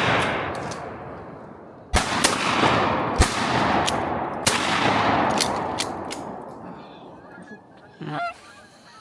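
Shotgun shots, three in quick succession about 2 to 4.5 seconds in, each a sharp crack trailed by a long, fading echo across the swamp. A short call-like sound comes near the end.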